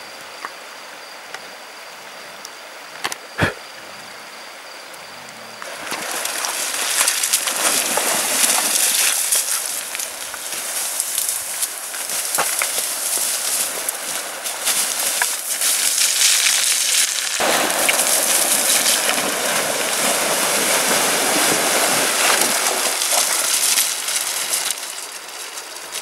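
Wild boar moving and rooting through dry scrub and stones close by: a dense rustling and crunching full of small cracks and clatters that starts about six seconds in after a faint hiss, grows fuller past the middle and eases near the end.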